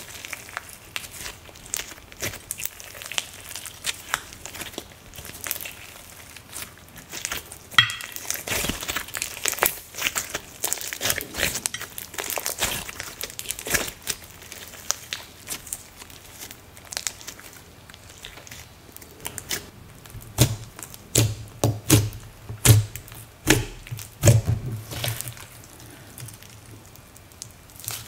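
Hands kneading and squeezing a thick glittery slime, giving many small sticky clicks, pops and squishes. The squishing gets busier in the middle, and near the end it comes with a run of dull low thumps.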